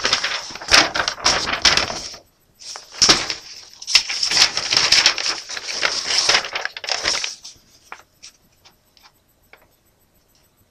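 Plastic model-kit parts in their bags being handled: crinkling with light plastic clicks and clatter in two long bouts, then a few single clicks before it stops near the end.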